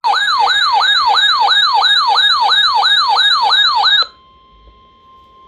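Electronic yelp-style siren tone, a loud clean pitch sweeping up and down about three times a second, which cuts off suddenly about four seconds in. A faint steady tone remains after it.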